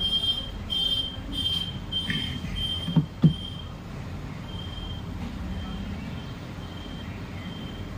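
A short high electronic beep repeating about every two thirds of a second, fainter in the second half, over a steady low hum. Two dull knocks come about three seconds in.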